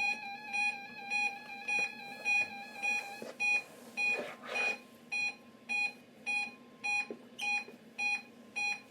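Weather radio alarm beeping: short electronic beeps repeating evenly, a little under two a second. A brief rushing noise cuts in about four seconds in.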